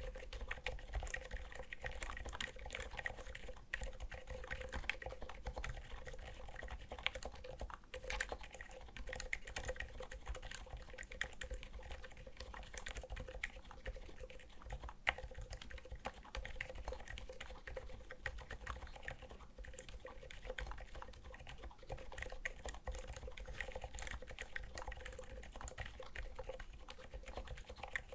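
Continuous typing on a Skog Reboot custom mechanical keyboard fitted with Seriko silent linear switches. Many quick, soft keystrokes follow one another without pause.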